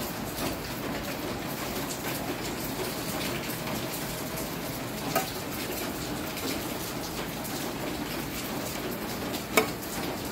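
Steady rain falling, a continuous hiss of drops, with two sharp clicks: one about five seconds in and a louder one near the end.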